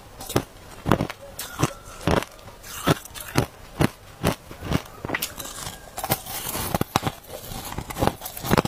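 Crushed ice crunched between the teeth, sharp brittle crunches about twice a second, close to the microphone.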